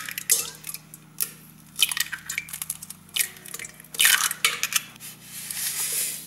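Eggs knocked and cracked open over a stainless steel mixing bowl, with a string of sharp shell cracks and taps against the metal. Near the end, sugar is poured into the bowl with a steady hiss.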